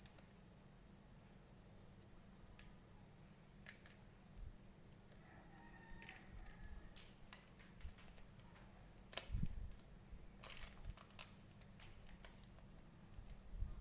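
Faint, scattered clicks and taps of small plastic toy pieces being handled and fitted together, with a louder knock about nine seconds in.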